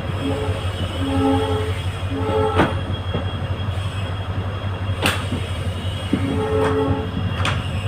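A WDP-4D diesel locomotive's EMD engine hums steadily as the train runs. Short pitched tones come and go a few times over it, and three sharp clicks mark wheels passing over rail joints.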